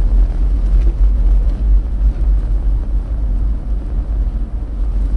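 Steady low rumble of a car driving on a snow-packed road, heard through the dashcam inside the cabin: tyre, road and engine noise.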